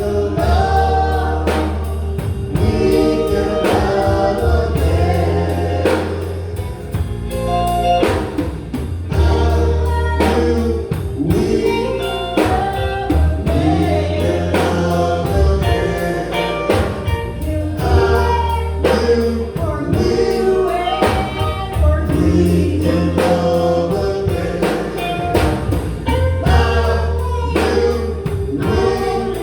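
Live gospel song: male voices singing together over drum kit, bass, keyboard and guitar, with a steady beat.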